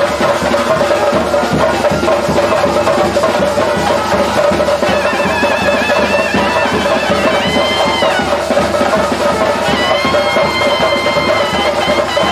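Traditional music with a steady drone and continuous drumming; about halfway through, a wind instrument's held, wavering melody notes enter above it.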